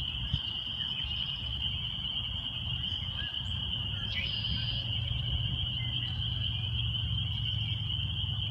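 A chorus of spring peepers, tree frogs calling for mates, as a dense, continuous high-pitched peeping, with a low rumble underneath.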